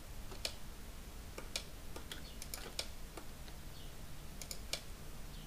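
About a dozen irregular clicks and taps of a computer keyboard and mouse, hotkeys and buttons pressed while editing a 3D mesh.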